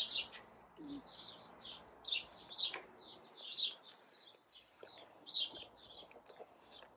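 Birds chirping: a busy run of short, high chirps, several a second and overlapping.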